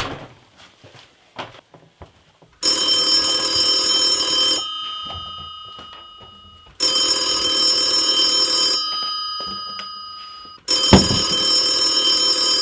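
Landline telephone's bell ringing three times, each ring lasting about two seconds with a ringing tail as it dies away. There are light knocks before the first ring and a thump at the start of the third ring.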